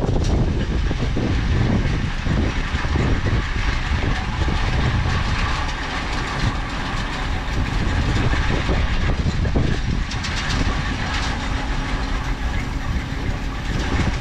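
Hay bale elevator running, its chain conveyor clattering steadily as small square bales of hay are fed onto it.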